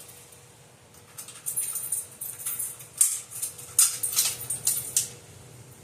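A run of light metallic clinks and jingles, likely from a fire alarm pull station and its small hardware being handled for mounting, from about a second in until near the end, over a faint steady hum.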